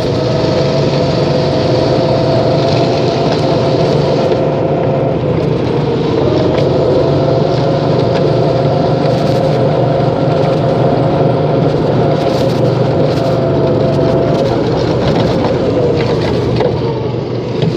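A motor vehicle's engine running steadily with a droning hum; its pitch dips and comes back up about six seconds in.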